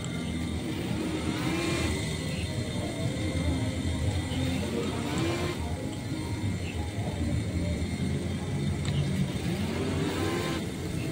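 Small electric motors of radio-controlled model boats running, their whine rising in pitch a couple of times as they speed up.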